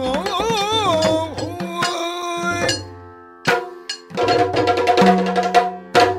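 Yakshagana bhagavata singing the end of a verse line in a wavering, ornamented melody, accompanied by maddale drum strokes. After a short lull around three seconds in, the maddale plays a quick run of strokes over a steady held drone.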